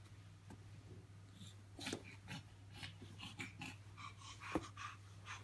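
Faint baby breathing and small grunts, with soft rustling as she rolls on the carpet, over a steady low hum; a single sharp click about four and a half seconds in.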